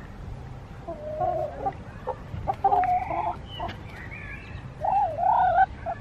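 Chickens calling and clucking: a few drawn-out calls, the loudest about two and a half seconds in and again near the end, the last one wavering in pitch, with quieter clucks between.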